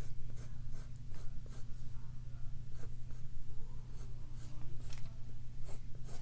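Drawing strokes: a run of short scratching strokes, about three a second, over a steady low hum.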